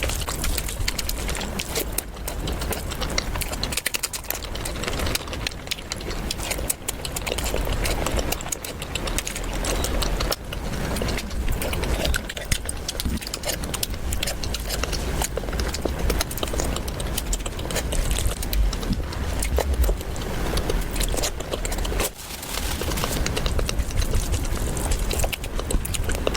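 Close-miked mukbang eating sounds: continuous chewing with dense, irregular wet mouth clicks and smacks.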